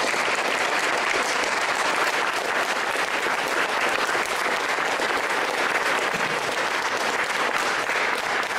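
Audience applauding: a roomful of people clapping steadily, thinning slightly near the end.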